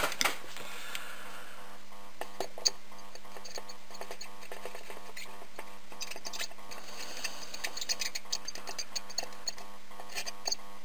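Soldering iron tip working along the pins of a surface-mount chip: scattered small ticks and clicks, busiest in the second half, over a steady low electrical hum.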